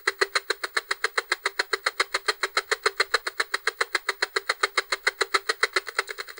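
Analog TV distortion sound effect: static chopped into a fast, even buzzing pulse, about eight pulses a second, jumping louder right at the start.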